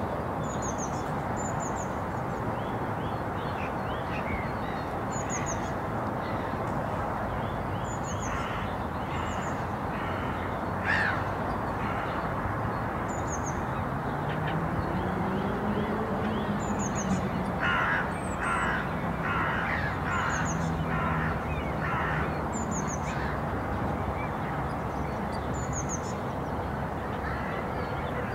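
Outdoor park ambience: a steady distant hum of wind and town, with a small bird's thin, high chirp repeating every couple of seconds. In the second half a crow caws about six times in a row. Around the middle a faint low engine note rises in pitch, holds and fades, as from a distant vehicle.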